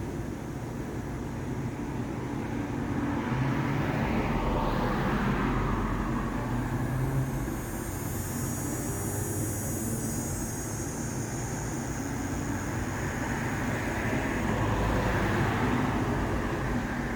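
Road traffic passing, with a steady low rumble underneath. Two vehicles swell and fade as they go by, one a few seconds in and another near the end.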